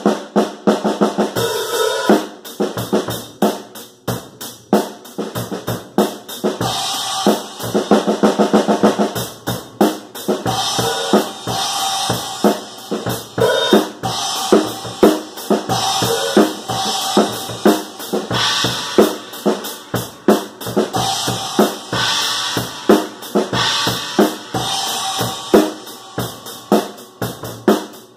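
Drum kit played in a steady groove: bass drum and snare hits with recurring crashes on an 18-inch Paiste 2000 Sound Reflections china cymbal.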